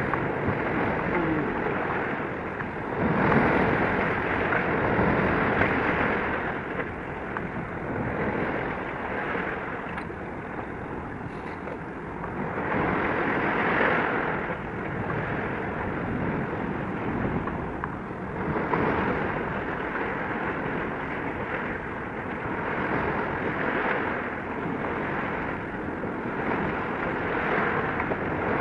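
Sea waves and wind rushing along the harbour shore, swelling and easing every few seconds.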